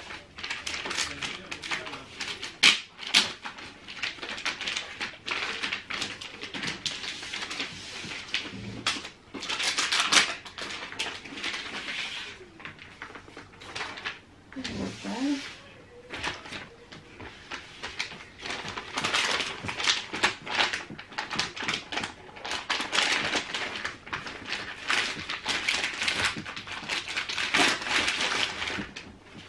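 Thin plastic protective film rustling and crinkling in irregular bursts as it is peeled off a new computer screen and handled, with a few sharper crackles.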